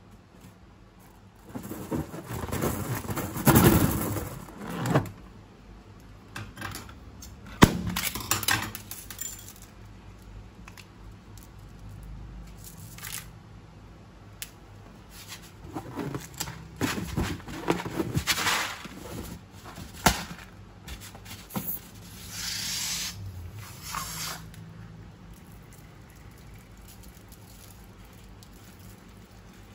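Slime and its fillings being squeezed out of piping bags and balloons and handled. The sound comes as several bursts of crackly, scraping handling noise with sharp clicks, with quieter gaps between them.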